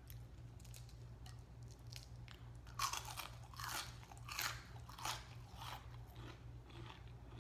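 Crunchy chewing of a fried onion ring, starting about three seconds in with a crisp crunch roughly every three quarters of a second. A steady low hum sits underneath.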